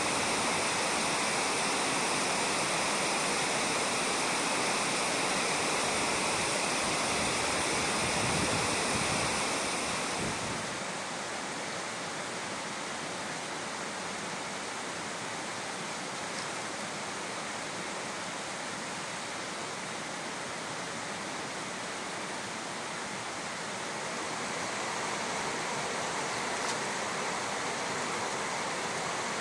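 Shallow river water running over a gravel bed: a steady rushing hiss. About ten seconds in it turns quieter and duller, then grows a little louder again near the end.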